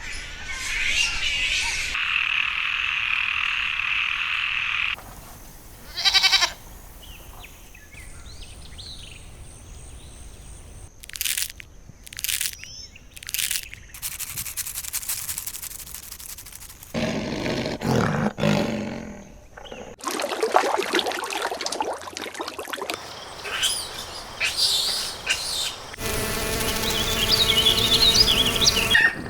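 A string of different wild animal calls and outdoor ambiences, cut together one after another every few seconds.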